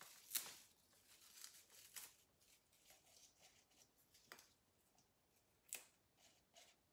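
Faint handling noise: soft rustling and a few scattered ticks as fresh parsley is torn and dropped into a blender jar.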